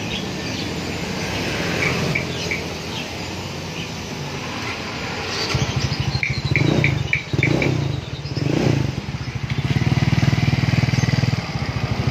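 Yamaha Xeon scooter's 125 cc single-cylinder engine idling through an opened-up (bobok) muffler, with a bassy, mellow note. The throttle is blipped three times, between about six and nine seconds in, and the engine settles back to a steady idle.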